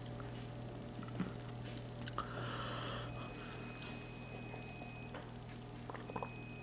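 A person breathing hard and sniffing through a chili-burned mouth, one sharp rushing breath about two seconds in, with small mouth clicks over a steady low hum.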